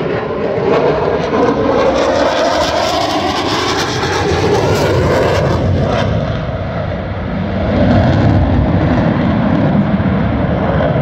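Engine noise of an aircraft flying past, a steady loud rush whose pitch slides slowly down over the first few seconds, swelling loudest about eight seconds in.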